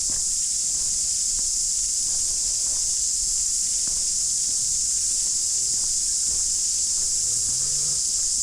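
A steady, high, continuous chorus of cicadas, with faint footsteps of someone walking on a path underneath.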